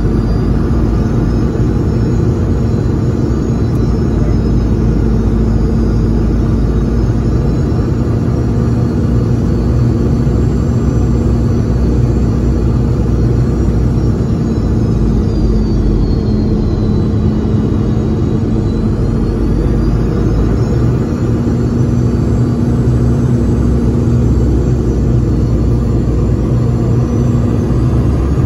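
Cabin noise of a Boeing 717 airliner on its descent to land: a steady rumble of airflow and its rear-mounted Rolls-Royce BR715 turbofans, with a steady low hum. A faint high whine dips in pitch about halfway through and rises again.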